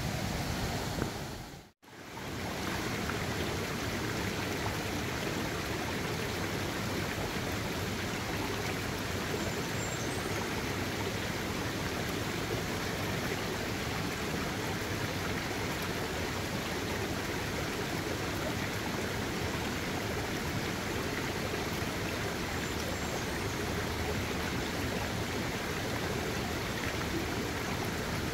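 Shallow rocky stream flowing over rocks and small riffles: a steady rush of moving water. It cuts out briefly about two seconds in, then carries on unchanged.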